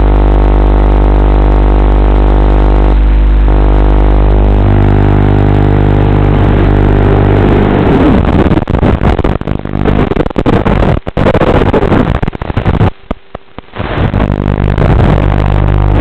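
Small FPV quadcopter on a 2S battery, heard through its onboard audio: a loud steady buzz at first, then a fluctuating, ragged motor sound as the throttle changes. The sound cuts out briefly twice, about eleven and thirteen seconds in.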